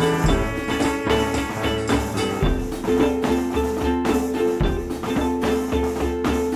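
Background music with a steady beat: plucked or struck pitched notes over drums and a pulsing bass.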